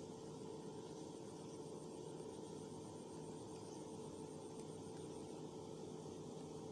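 Steady rain falling on the surface of a reservoir, a soft even hiss, with a steady hum underneath.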